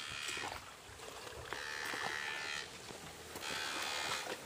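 Electric fishing shocker buzzing in three short bursts as it is switched on and off.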